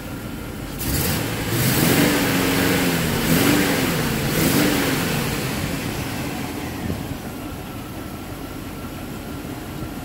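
A 1997 pickup truck's engine revved up and down two or three times, then settling back to a steady idle. It is running on one cylinder fewer: the misfiring cylinder two has its spark plug out and a compression gauge in the plug hole, for a running compression test on a cylinder that is lean from a bad injector.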